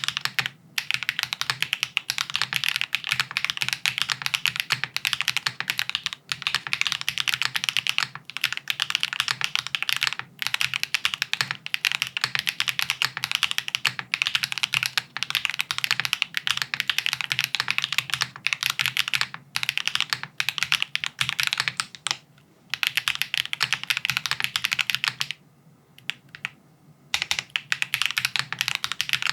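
Fast, continuous typing on a Haven65 XT mechanical keyboard, gasket-mounted with an aluminium plate, no foam dampening and PBT keycaps. The rapid key clicks break off in a few short pauses, with a longer pause near the end before the typing resumes.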